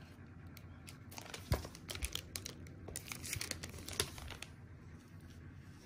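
Clear plastic bag crinkling in scattered crackles and clicks as it is handled, with a couple of low knocks about a second and a half and two seconds in.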